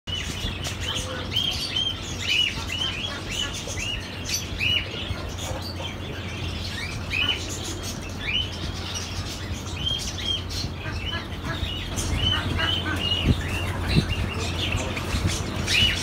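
A cage of Java sparrows chirping: many short, high notes that arch and fall, several a second, over a steady low hum.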